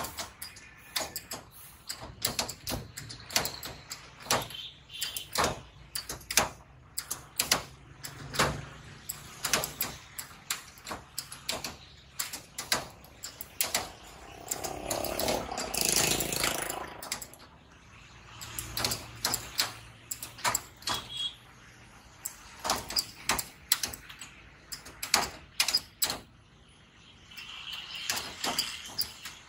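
Hand-lever french-fry cutter clacking again and again as raw potatoes are pushed through its blades into strips, with potatoes knocking as they are handled. About halfway through, a louder rush of noise rises and fades.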